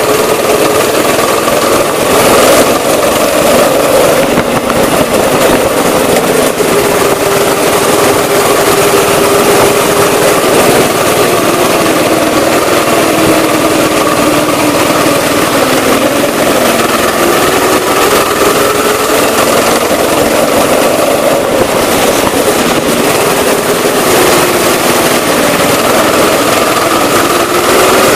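Go-kart engine running hard under the driver, its pitch slowly rising and falling as it speeds up and slows through the corners, over a loud rushing noise.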